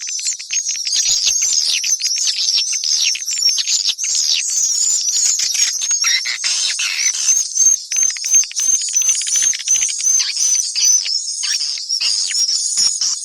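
Recorded swiftlet calls of the kind played to lure swiftlets into nesting houses: a dense flurry of high twittering chirps and rapid clicking trills, with a run of evenly repeated chirps, about three a second, in the middle.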